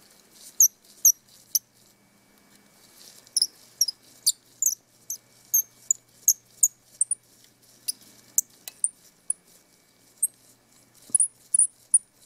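Precision screwdriver turning tiny screws into a compact digital camera's body: a quick, irregular run of short high-pitched squeaks and ticks, several a second, as the tip works in the screw heads.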